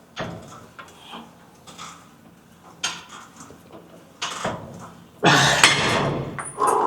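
Dumbbells knocking and clinking during a rear delt fly set, with scattered short clanks and a louder rush of noise lasting about a second, some five seconds in.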